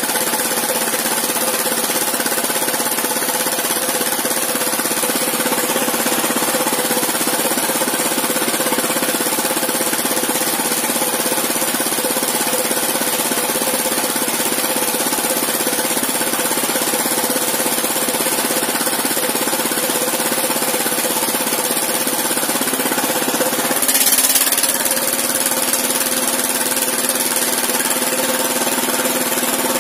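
Stationary engine driving a small wood sawmill, running steadily with a fast knocking beat. About 24 seconds in there is a brief louder surge, and its tone then settles lower.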